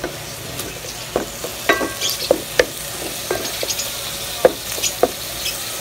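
Wooden spatula scraping and knocking against a pot at irregular moments as shredded chicken is stirred, over a steady sizzle as the chicken sautés with garlic and onion.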